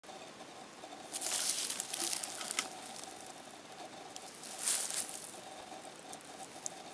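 Dry tinder rustling and crackling as fingers crumble and work it, in short bursts: a longer one about a second in and a brief one near five seconds.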